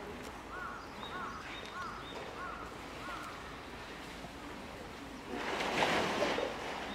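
Water splashing loudly for about a second as a polar bear lunges onto a floating blue plastic tank about five seconds in. Before that, a bird calls five times in short rising-and-falling whistled notes.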